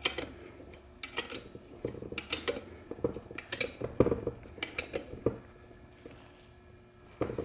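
Wrench clinking against a brass fitting as it is turned and tightened into a T5 transmission case: a run of light, irregular metal clicks, dying away after about five seconds.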